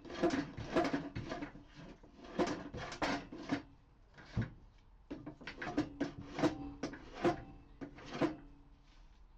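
Hand plane taking repeated short strokes across a reclaimed pallet-wood workbench top, shaving down uneven high spots, in two runs with a pause between them. A single sharp knock comes about four and a half seconds in.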